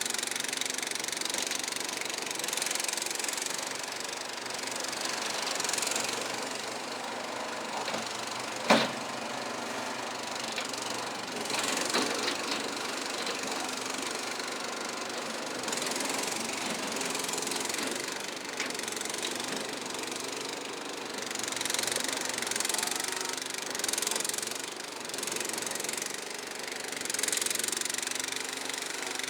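Kohler engine of a Struck Magnatrac Junior mini bulldozer running steadily under work, its note rising and falling now and then. A sharp bang about nine seconds in and a smaller knock a few seconds later.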